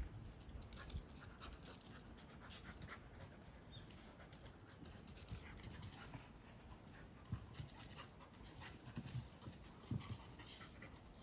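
Two dogs play-wrestling on the ground, with faint panting and scuffling and a few soft thumps in the second half.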